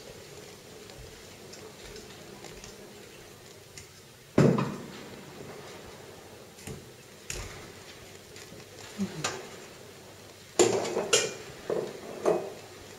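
Pots and dishes clattering as they are handled, with one loud clank about four seconds in and a run of knocks and clinks near the end.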